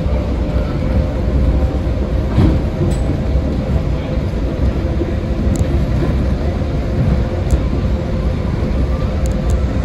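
Las Vegas Monorail train (Bombardier M-VI) running at speed along its concrete guideway, heard from inside the car: a steady low rumble from its rubber tyres with a faint steady whine over it.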